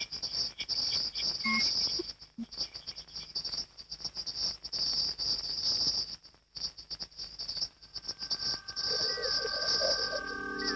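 High-pitched electronic chirping that flutters on and off in quick, irregular spurts. About eight seconds in, several steady electronic tones at different pitches come in and hold, with a brief wobbling sound beneath them.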